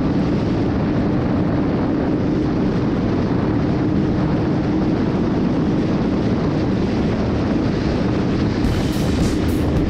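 Sport motorcycle engine running at a steady cruising pace, with wind rushing over the microphone. Near the end, music with a crisp, quick beat comes in.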